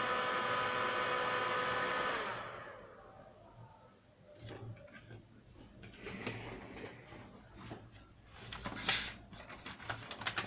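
A hot-air blower runs steadily and is switched off about two seconds in, its motor whine falling away as it spins down. Faint small clicks and scrapes of handling follow.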